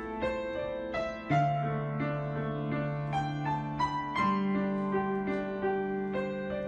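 Slow, gentle piano music: single notes over held low notes that change twice.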